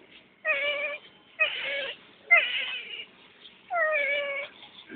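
Infant crying in four short, high-pitched wails, each about half a second long, with brief pauses between them.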